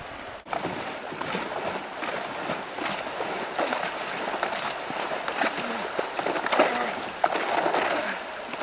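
Kayak paddle blades digging in and splashing, stroke after stroke, over the steady rush of a shallow riffle as the kayak is paddled hard through it.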